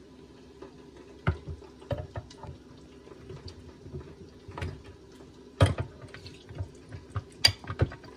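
Boiled dried red chiles lifted with tongs from a glass bowl and dropped into a plastic blender jar: wet, dripping plops with several sharp knocks of the tongs against the bowl and the jar, loudest about halfway and near the end. A steady low hum runs underneath.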